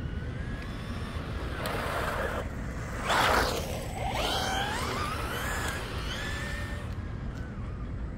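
RC truck's electric motor whining, its pitch rising and falling with the throttle, over a steady low rumble. Two bursts of hissing noise cut in, the louder one about three seconds in.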